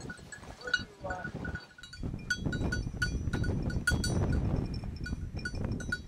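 A small bell on a bird dog's collar jingling in quick, irregular pings, several times a second, as the dog runs. Under it a rustling rumble of movement through dry grain, louder from about two seconds in.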